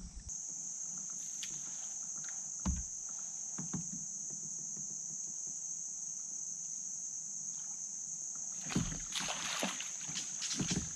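Steady high-pitched chorus of insects singing, with a couple of soft knocks early on and a short run of knocks and rustling noise near the end.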